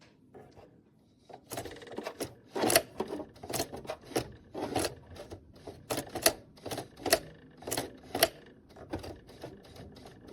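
Singer Heavy Duty 4432 mechanical sewing machine making a run of sharp, irregular mechanical clacks, about two a second.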